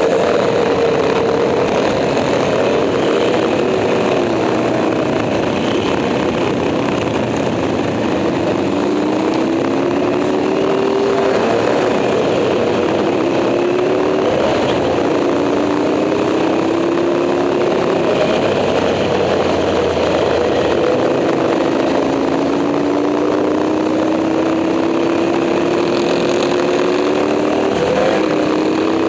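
Moto Morini 350 V-twin racing motorcycle engine under hard acceleration, its pitch wavering at first and then climbing over a couple of seconds at a time and dropping back at each upshift, several times over.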